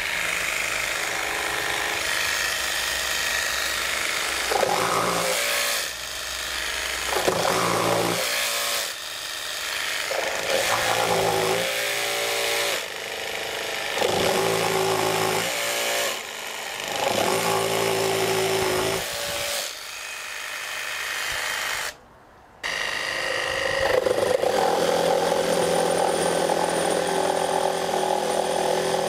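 Makita barrel-grip cordless jigsaws cutting through a thick timber plank, the blade running steadily through the wood. The note shifts every second or two. After a brief break a little past two-thirds of the way in, a second saw, the 18V model, takes over with a steadier run.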